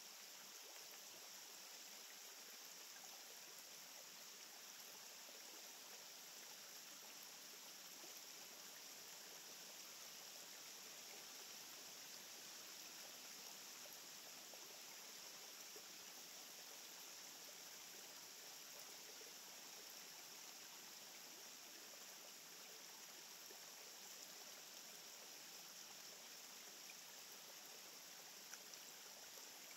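Near silence: a faint, steady rushing hiss with no clear events.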